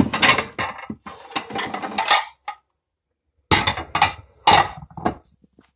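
Pots and pans clattering and scraping as they are moved about by hand, in two spells of knocks and scrapes with a quiet pause of about a second between.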